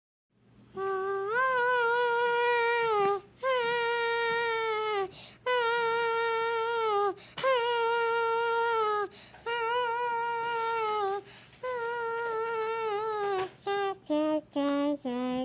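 A voice singing 'aaaa' on six long held notes, each sustained for a second or two with a slight wobble, then breaking into a quicker run of short notes stepping down in pitch near the end.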